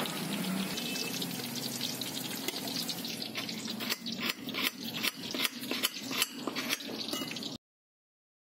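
Metal knife blade scraping and tapping on a ceramic plate, crushing salt and seasoning. From about halfway in, it becomes a run of sharp taps, about three a second, then stops abruptly near the end.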